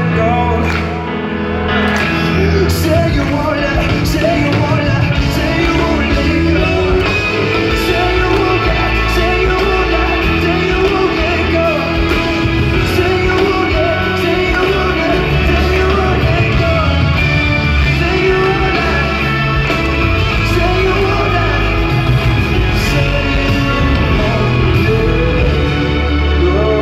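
Live pop ballad played over an arena PA and recorded from the crowd: a male voice singing over acoustic guitar, bass and a steady beat, echoing in a large hall.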